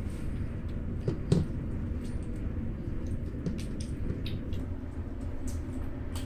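Two kittens eating wet food greedily from a bowl: quick wet smacking and chewing clicks close up, over a steady low hum. A short louder thump comes about a second in.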